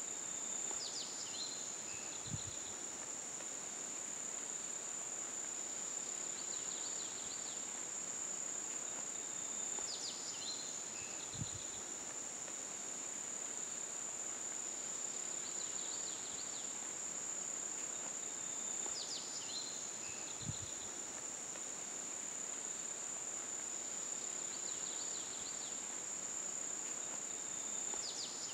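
Insects, crickets by the sound, keep up a steady high-pitched trill. Short higher chirps and a faint low thud come back about every nine seconds.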